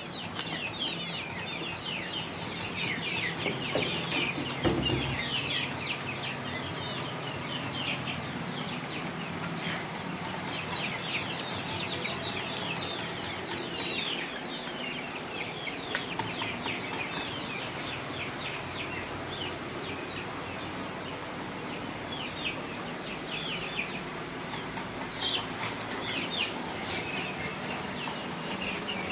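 A large flock of young chicks peeping, many short high chirps overlapping without a break, over a steady low hum.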